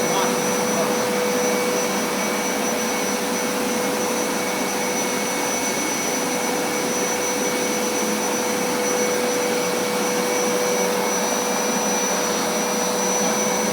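Hoover SmartWash carpet cleaner running steadily, an even motor whir with a constant high whine.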